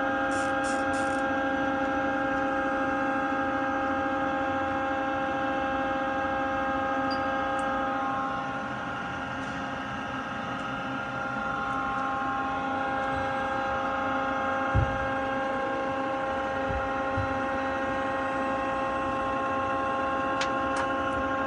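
Takisawa TC-20 CNC lathe standing powered up with its spindle stopped, giving a steady machine hum made of several held tones. A short run of rapid high ticks comes in the first second, and a single low thump about 15 seconds in.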